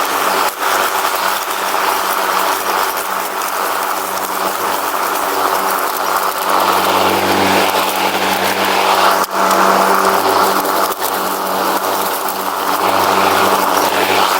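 Riding lawn mower engine running steadily, with a few sharp knocks or rattles over it.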